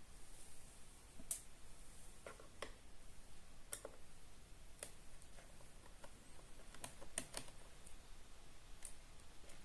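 Scattered faint clicks and light taps of small metal screws and a screwdriver being handled against a laptop's plastic bottom case, at irregular intervals.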